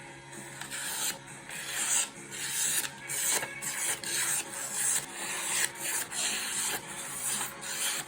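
Sharp N690 steel balisong blade slicing through paper in a series of cutting strokes, a dry papery rasp on each pass, roughly one or two a second.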